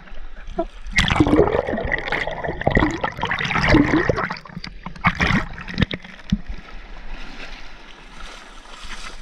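Shallow sea waves washing over a camera at the water's edge: loud splashing and gurgling against the microphone from about a second in until about four seconds, then a lower, steady wash of water.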